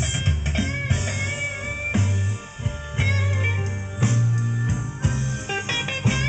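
Blues music with guitar and a steady bass line, with bent guitar notes, playing through a vintage wooden console stereo.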